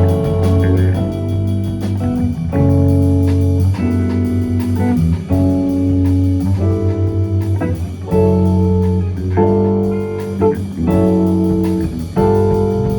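Live band playing an instrumental passage: guitar chords over a steady bass line, with light drums, in a bluesy style.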